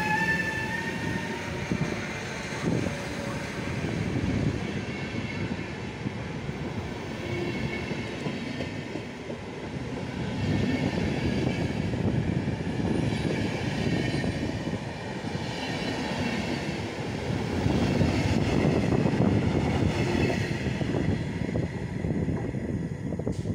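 Passenger coaches of an electric-hauled train rolling past close by, their wheels running on the rails in a steady noise that swells and fades, loudest shortly before it dies away near the end. In the first second the rising whine of the class 388 electric locomotive fades out.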